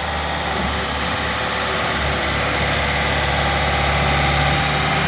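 Bobcat S160 skid steer loader's diesel engine running steadily, growing gradually louder.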